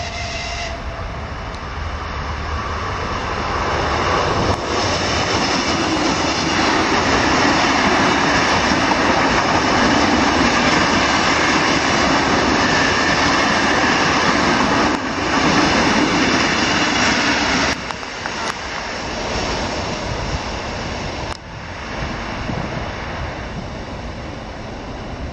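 Suburban electric multiple-unit train passing close by at speed: a loud, steady rushing of wheels on rail and running gear. It builds over the first few seconds, holds at its loudest for about ten seconds, then falls away abruptly.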